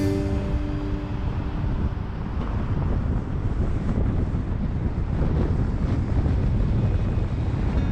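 Car on the move: a steady low rumble of road and wind noise.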